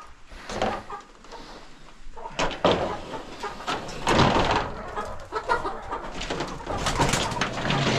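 Chickens clucking and cooing in the coop. From about two seconds in there is irregular scraping and scuffing, as droppings are scraped off the coop's shields and into a pile.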